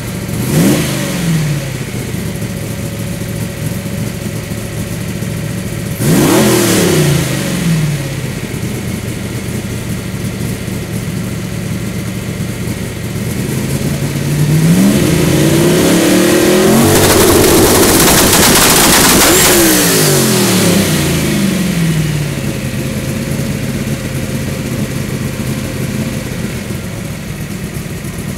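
Turbocharged Hemi V8 drag-car engine idling and being revved three times: a short blip at the start, a sharp rev about six seconds in, and a longer, higher rev held for several seconds past the middle before falling back to idle.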